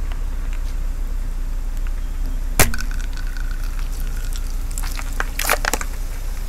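Plastic tube of slime cracking under a slowly rolling car tyre: one sharp crack about two and a half seconds in, then a cluster of snapping cracks around five seconds as the tube splits and the slime squeezes out, over the low rumble of the car.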